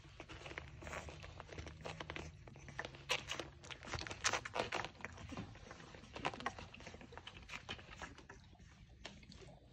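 One-month-old French bulldog puppies nursing from their mother: irregular small clicks and smacks of suckling mixed with the crinkling of plastic-backed puppy pads as they shift about, busiest in the middle.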